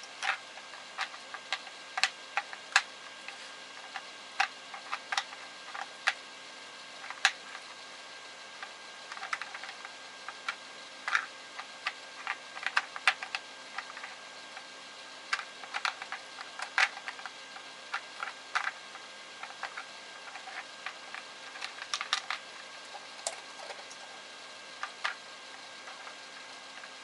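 Plastic dog puzzle toy clicking and tapping irregularly as its pieces are moved, some taps coming in quick clusters.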